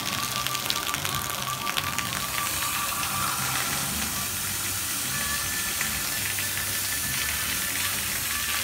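Ratchet wrench clicking in quick runs for the first couple of seconds as a fitting under the car's floor pan is worked, over a steady hiss of running water. Music plays underneath.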